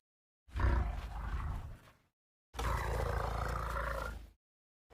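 Two separate elephant roars, each under two seconds long and deep and rumbling. The first fades as it goes, and the second holds steady.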